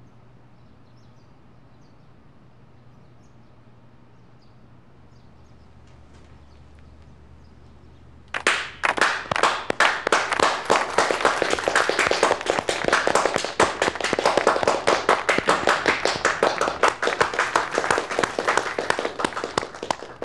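A group of people clapping, breaking in sharply about eight seconds in after a quiet stretch of room tone with a low steady hum.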